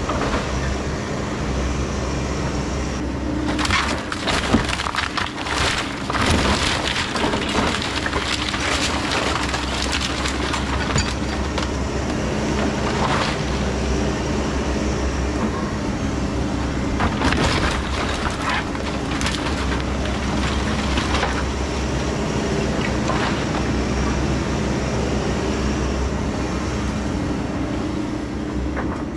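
Takeuchi TB2150 excavator running steadily while its bucket and thumb tear down a wood-framed house. From a few seconds in, timber and debris crack, splinter and crash down again and again.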